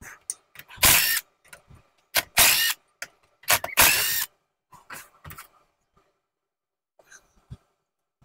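Cordless power tool run in short bursts, four or five times in the first half, spinning out engine crankcase bolts, followed by a few light clicks of metal parts being handled.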